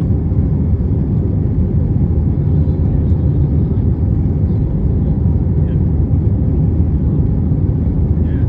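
Steady low rumble of the engines and rushing air inside the cabin of an Airbus A320-232, whose IAE V2500 turbofans run at high power as it takes off and climbs away, with a faint steady hum running through it.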